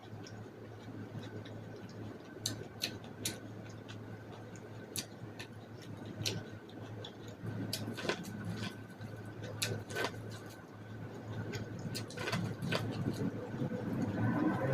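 Close-miked eating of boiled corn: irregular sharp mouth clicks and smacks as kernels are bitten and chewed, over a steady low hum.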